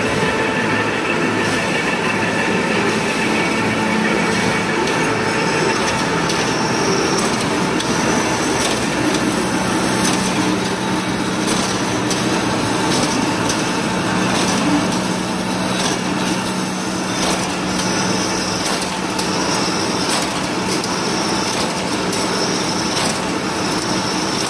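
Ribbed steel wire making machine (cold-rolling and wire straightening-and-cutting line) running as steady, loud machine noise, with a higher sound recurring about every second and a half. A low steady hum comes in about a third of the way through.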